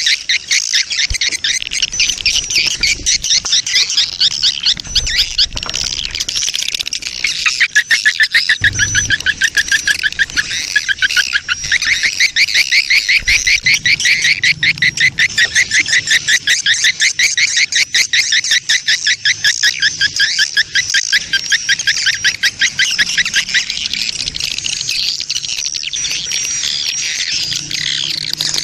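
Swiftlet lure-call recording: a colony of edible-nest swiftlets twittering, a fast, dense string of chirps at about five a second. Used to draw swiftlets into a nesting house.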